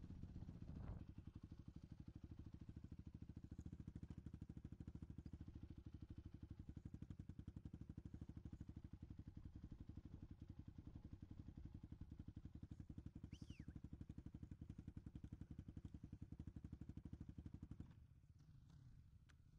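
Motocross bike engine idling faintly with a steady, fast, even beat. It cuts out about a second before the end.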